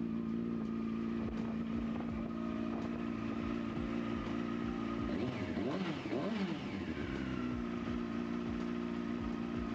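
Yamaha YZF-R6 600 cc inline-four engine running steadily at idle, blipped twice a little past halfway so the pitch rises and falls quickly, then settling back to idle.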